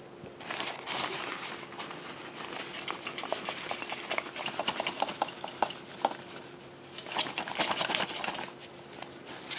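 Rustling with many light, irregular clicks and clatters as backpacking gear is handled and rummaged through.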